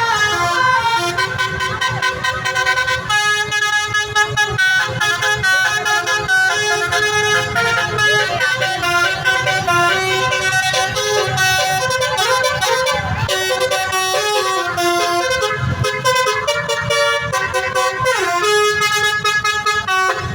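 Indonesian bus 'telolet basuri' multi-tone musical horn playing a long melody, its notes stepping from pitch to pitch without a break, over a low rumble.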